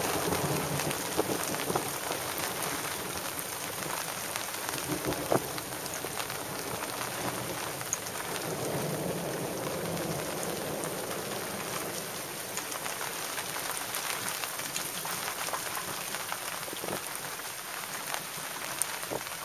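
Steady rain falling, with many small drop ticks, and a low rumble of thunder swelling about eight seconds in.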